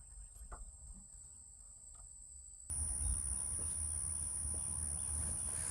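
Steady high-pitched insect chorus over a low rumble, with a couple of faint clicks in the first half; the whole background abruptly gets louder about halfway through.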